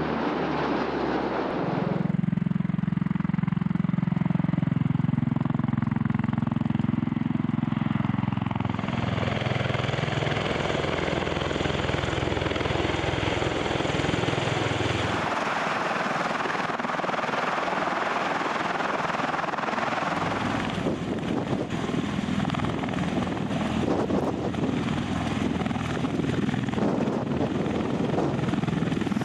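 A C-130 Hercules's turboprop engines pass overhead with a steady low drone. From about halfway the sound changes to an MV-22 Osprey tiltrotor's rotors and turboshaft engines hovering and turning near the ground, a broad rushing noise without a clear pitch.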